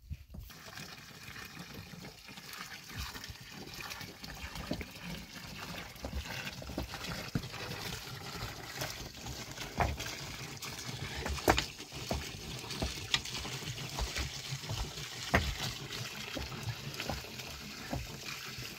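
Water trickling steadily, with a few sharp knocks, the loudest a little past the middle.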